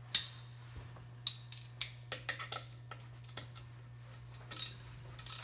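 Steel bolts clinking and scraping against a metal motor mounting plate as they are handled and set in place by hand, with one sharp clink about a quarter second in and a scatter of lighter clicks after it.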